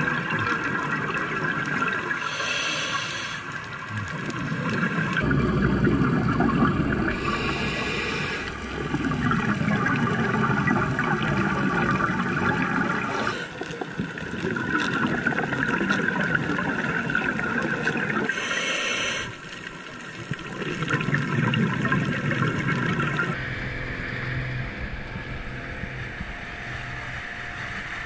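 A scuba diver breathing through a regulator, heard underwater. A few short hissing inhales come between long gurgling rushes of exhaled bubbles, several seconds apart.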